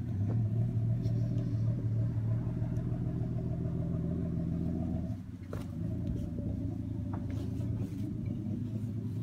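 Plymouth Duster's engine idling with a steady low rumble, dipping briefly just past halfway.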